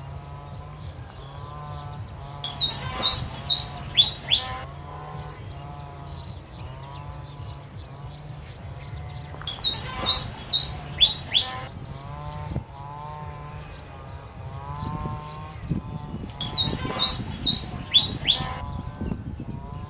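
Small bird chirping: bursts of several sharp, quick chirps, with softer curved calls between them, over a steady high hiss and a low hum. The chirp bursts recur about every seven seconds in the same pattern, like a looped recording.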